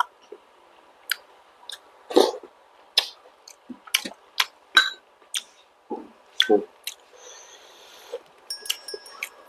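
Close-miked eating of fertilized duck eggs (balut) with vegetables: wet chewing with irregular sharp mouth clicks and smacks, a few heavier crunchy bites among them.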